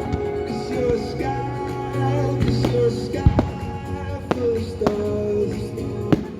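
Loud music with singing, played for a firework display, punctuated by about seven sharp firework bangs, the loudest a little past three seconds and near the end.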